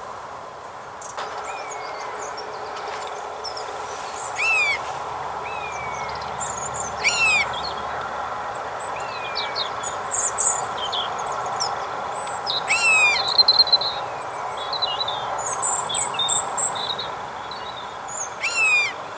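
Wild birds calling: a loud, sharp, falling call repeated four times a few seconds apart, with fainter falling calls and high chirps from small birds in between.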